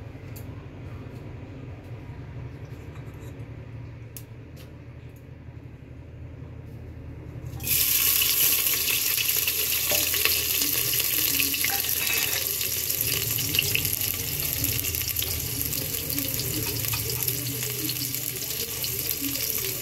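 Sliced red onions hitting hot oil in an aluminium pressure cooker: a low hum, then about seven seconds in a sudden loud sizzle that keeps going steadily as the onions fry and are stirred.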